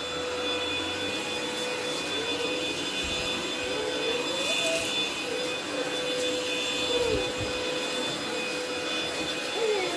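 Cordless stick vacuum cleaner running on carpet: a steady motor whine, its pitch dipping and rising briefly now and then.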